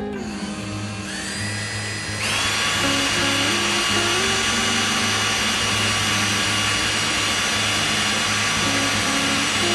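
Power drill boring a pilot hole through a white oak bourbon barrel stave. It spins up, steps up to a higher, louder speed about two seconds in, then runs steadily.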